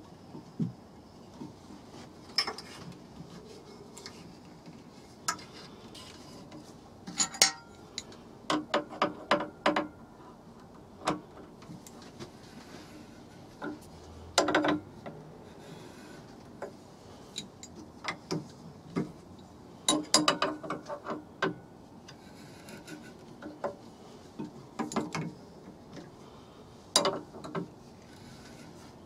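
Steel spanners clinking and scraping against a lathe's collet chuck and nut as the collet is tightened by hand: irregular sharp metal clicks and clanks, several coming in quick clusters.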